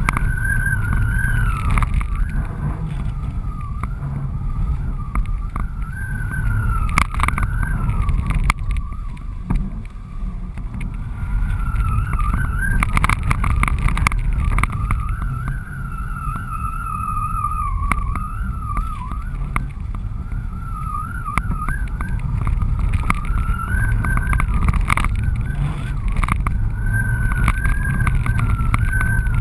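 Heavy wind rushing and buffeting over a GoPro camera mounted on the strut of a flying kite, with a thin wavering whistle that drifts up and down in pitch as the airflow changes.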